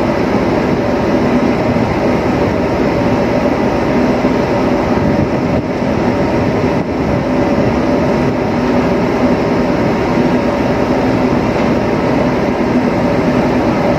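Ship's machinery running with a steady drone and a constant multi-tone hum.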